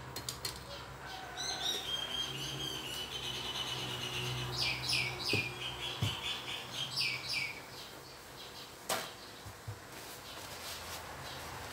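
A bird calling: a run of high chirps and a held whistle, then a quick series of downward-sweeping notes. A single sharp click comes near the end.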